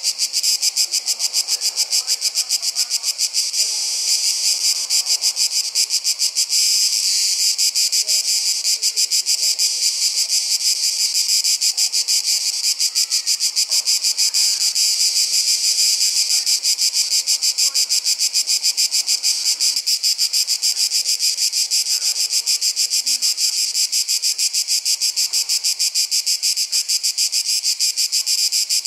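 A dense, unbroken chorus of summer insects: a rapid, even pulsing shrill, high in pitch, going on steadily throughout.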